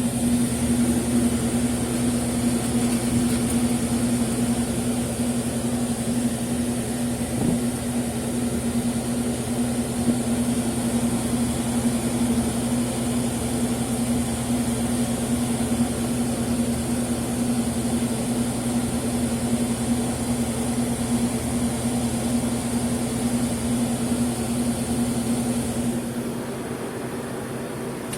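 Refrigeration compressor of a Traulsen cooler/freezer combo running with a steady hum and a faint high whine, then dropping away about 26 seconds in.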